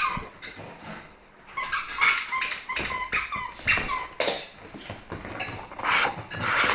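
A Wobble Wag Giggle Ball dog toy making its giggling, squeaky noises in short bursts, mixed with dog noises.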